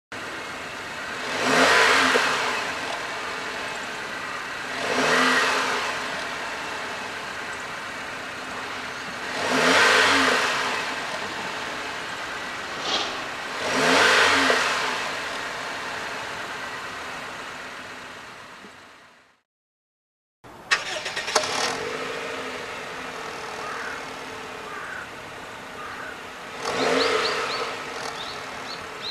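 Honda Freed GB3's 1.5-litre four-cylinder engine running at idle through an HKS LEGAL aftermarket dual-tip muffler, blipped four times, each rev rising and falling over about a second. After a brief gap it idles again, with one more rev near the end. This street-legal muffler is tuned for a subdued, only slightly-louder-than-stock exhaust note.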